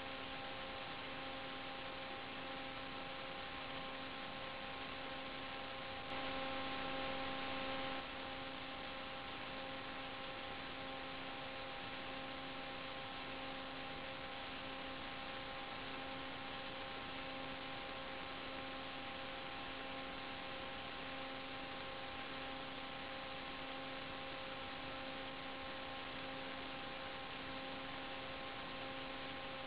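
Steady electrical hum over hiss, typical of the audio track of an analog FPV video link: a low buzz with a few fixed overtones that holds one pitch throughout. About six seconds in it swells a little louder for two seconds.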